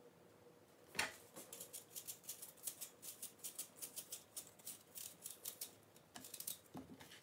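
Kitchen knife peeling an apple: a quick run of short scraping strokes, about four a second, faint, after a single knock about a second in.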